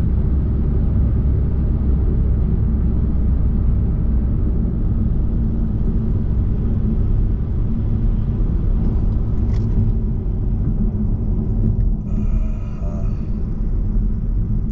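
Steady low road and engine rumble inside a moving car's cabin, with a brief faint higher sound near the end.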